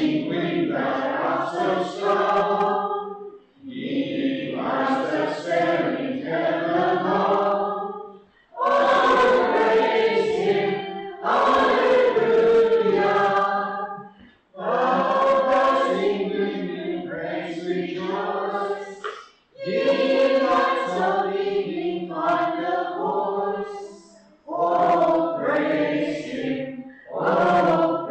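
A choir singing in phrases of a few seconds, with short breaks between the phrases.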